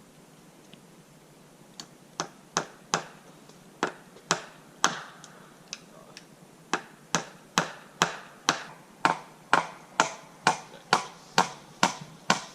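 Hammer driving nails into wood: sharp blows begin about two seconds in, uneven at first, then a steady run of about two a second.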